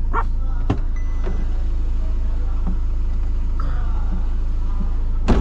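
Motorhome engine idling steadily with a low hum, heard from inside the cab. A few sharp clicks or knocks cut through it, the loudest near the end.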